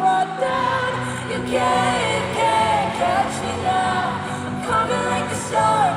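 Live pop concert: a female lead vocalist sings a melody with sliding, bending notes into a microphone over steady instrumental backing.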